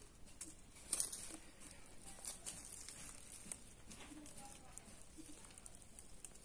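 Faint rustling and crackling of dry fallen leaves as macaques shift about on them, with scattered small clicks; one sharper crackle about a second in.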